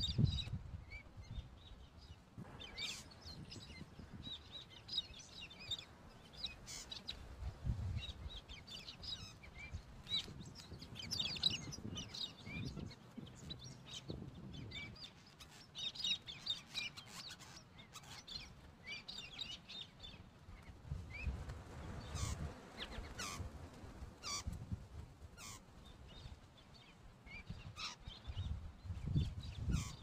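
Wild birds chirping and twittering, with many short high calls throughout. Low rumbles come briefly near the start, about eight seconds in and near the end.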